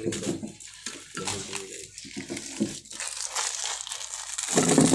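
Chocolate munchkin donut holes being crushed with a spoon in a glass bowl: crinkly crumbling and scraping. A louder rustle comes near the end as the phone is handled.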